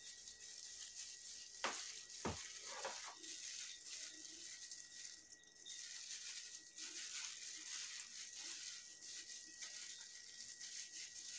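Faint crinkling and rustling of a plastic bag worn over a hand while picking the bones out of boiled sardines, over a steady hiss, with two sharp clicks about two seconds in.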